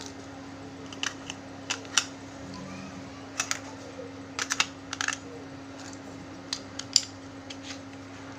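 Light plastic clicks and taps of batteries being fitted into a wireless microphone's battery compartment, scattered irregularly, over a steady low electrical hum.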